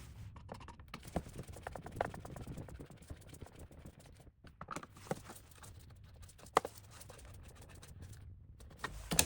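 Small plastic clicks, taps and light scraping as a Roomba i7's wheel module is handled and fitted back into the robot's chassis, with one sharper click about six and a half seconds in.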